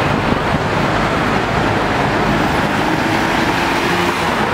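Steady city street traffic noise: vehicle engines running and cars passing close by.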